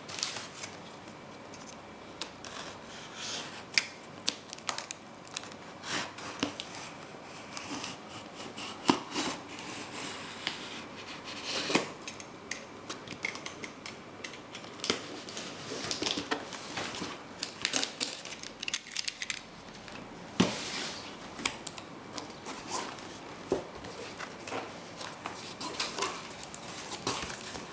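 Pen knife cutting open a cardboard box, slicing through the packing tape and cardboard, with a long run of irregular scratches, scrapes and clicks as the box is handled.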